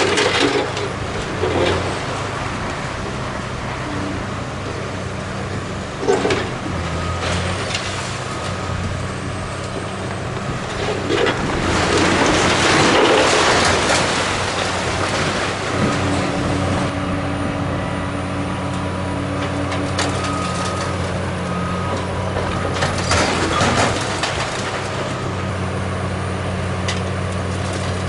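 Caterpillar hydraulic excavator's diesel engine running steadily while its demolition attachment tears into a brick building, with bricks and rubble knocking and crashing down. A long burst of crashing debris comes about halfway through, as a section of wall collapses.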